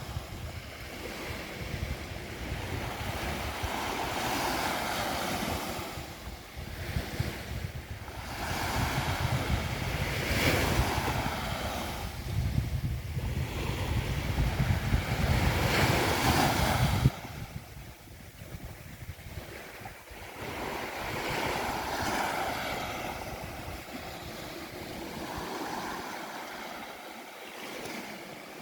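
Sea waves breaking on a beach, the wash swelling and fading about every five to six seconds. Wind buffets the microphone as a low rumble that stops suddenly a little past halfway.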